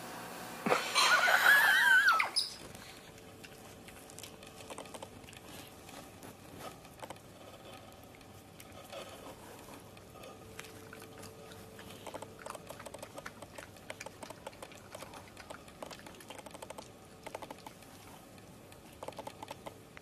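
A white-throated magpie-jay gives one loud, harsh call with a wavering pitch, lasting about a second and a half, near the start. Then a European badger foraging on wooden decking: faint, scattered clicks and crunches as it eats food from the boards.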